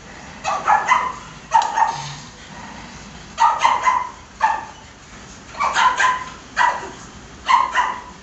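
Dog barking in short runs of two or three barks, a run every second or so.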